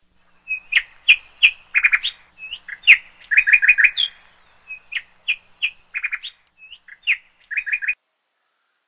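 Small songbird chirping: short sharp high notes and quick runs of three or four notes, stopping about eight seconds in.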